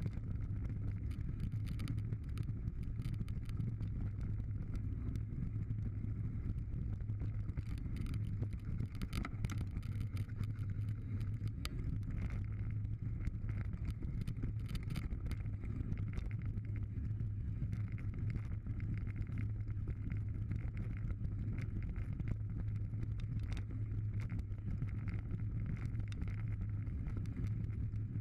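Mountain bike riding fast down a gravel forest trail: a steady low rumble of tyres and wind, with frequent small knocks and rattles as the bike goes over bumps.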